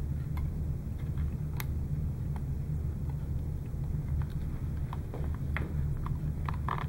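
Scattered light clicks and small rustles of a thin cable being pulled through and handled inside a piece of equipment, over a steady low hum.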